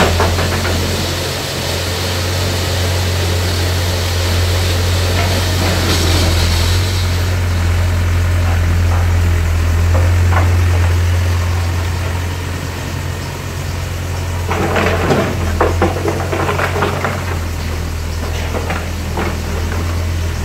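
Volvo EW60C wheeled excavator's diesel engine running with a steady low hum, with a cluster of knocks and scrapes about fifteen seconds in.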